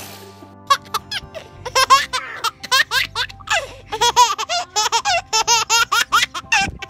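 A baby laughing hard in a run of short, high-pitched bursts that starts about a second in and comes faster and more steadily from about four seconds on.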